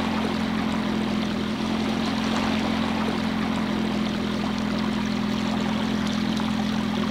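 Small 6 hp outboard motor on a dinghy running at a steady speed under way, with water rushing along the hull.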